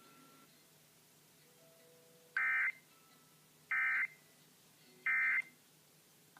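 Emergency Alert System end-of-message signal: three short bursts of digital data tones, each about a third of a second, a little over a second apart. They mark the end of the alert message.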